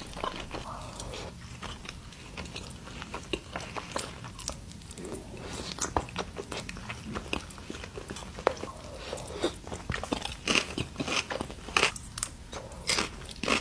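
Close-miked chewing and biting of sushi: a run of short, sharp mouth clicks and crunches, louder and more frequent near the end.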